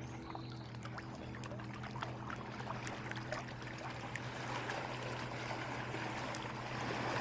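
Water splashing and rushing against a small fishing boat, growing louder near the end, over a steady low motor hum, with scattered small clicks.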